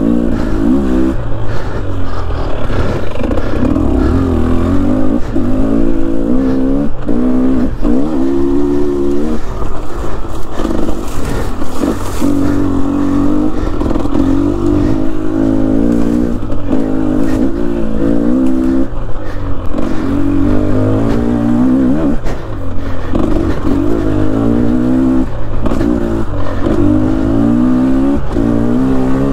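Dirt bike engine being ridden on a rough trail, revving up and down again and again, its pitch rising with each burst of throttle. Scattered short knocks run through it.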